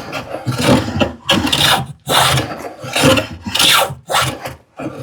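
Hand tool stroking back and forth on a piece of wood, a rasping scrape about once a second with brief gaps between strokes.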